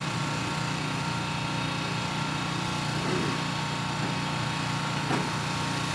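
Power sander running steadily with a constant motor hum.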